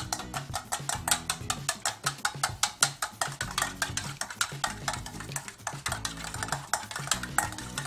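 Raw eggs being beaten with a wooden chopstick in a stainless steel bowl: rapid, fairly even tapping and clinking of the stick against the metal, many strikes a second.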